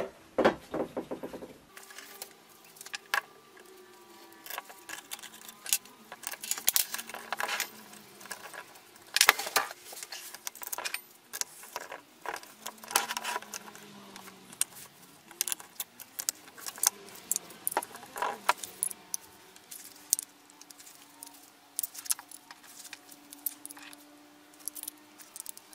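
Small metal parts clicking and clinking in irregular taps as a moped engine's ignition stator plate and its screws are handled and fitted onto the crankcase.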